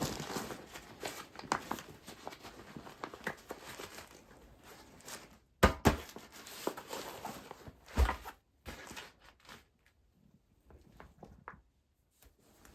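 Nylon fabric of a Trail Bum Big Turtle Ultra backpack rustling and crinkling as its roll-top is rolled down and fastened, with scattered small clicks and a few sharper knocks midway. The handling thins out and goes quiet near the end.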